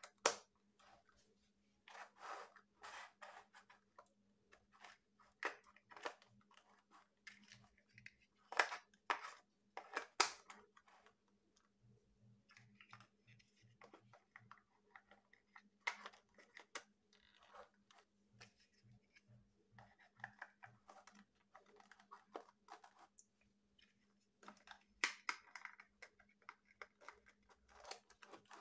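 Hollow plastic building blocks clicking and clacking as they are handled, set down and pressed onto each other's studs, in irregular sharp knocks with softer rubbing and scraping of plastic between them. A faint steady low hum runs underneath.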